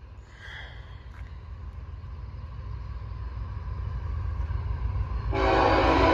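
Low rumble of an approaching diesel-hauled freight train, growing steadily louder. About five seconds in, a scanner radio suddenly opens loud with the steady tones of a trackside defect detector's transmission starting.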